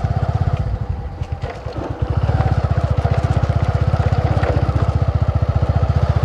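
Bajaj V15's single-cylinder motorcycle engine running under the rider on a rough dirt track, heard as a fast, even low thudding. The throttle eases off about a second in and picks back up about two seconds in.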